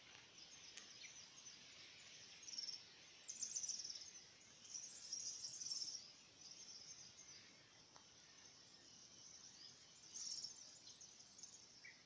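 Faint high-pitched chirping of small field creatures in short bursts every second or two, over a quiet steady hiss of open-air ambience.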